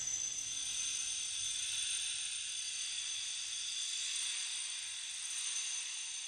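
A steady high-pitched hiss that stays even throughout.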